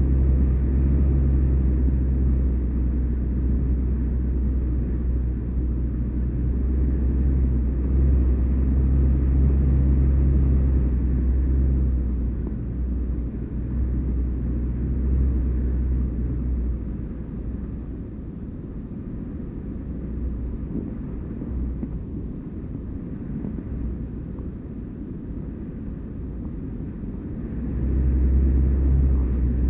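Wind buffeting a GoPro HD2 camera carried aloft on a kite line: a steady low rumble that eases a little past halfway and swells again near the end.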